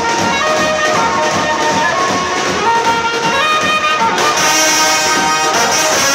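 Indian wedding brass band playing a tune on trumpets and brass horns over drums. About four seconds in, the sound grows brighter as a high hiss joins.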